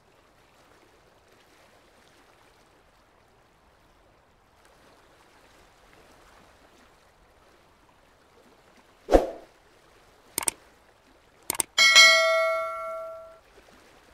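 Subscribe-button animation sound effect: a swoosh about nine seconds in, a few quick clicks, then a notification bell ding that rings out for about a second and a half.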